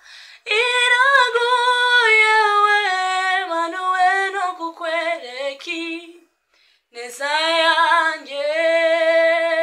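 A single unaccompanied voice singing a slow song, with gliding, bending notes. It breaks off for about a second midway, then comes back in and holds one long steady note.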